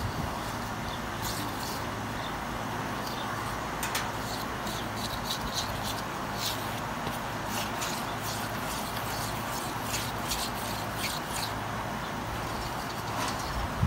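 A metal utensil stirring thick batter in a stainless steel mixing bowl: irregular clinks and taps of metal against the bowl over a steady background hiss.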